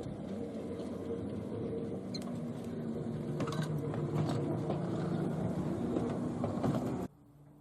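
Heritage electric tram running: a steady motor hum with several pitched lines, with scattered clicks and rattles over it. About seven seconds in it cuts off abruptly to a much quieter background.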